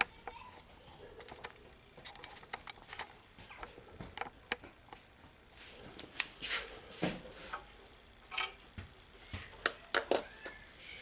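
Scattered clicks and taps of small metal tools and parts being handled while a hand ratchet is taken apart, with several sharper clicks in the second half.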